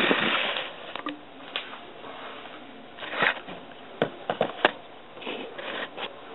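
Handling noise of a camera being moved and positioned: a brief rustle, then scattered sharp clicks and knocks over a low hiss.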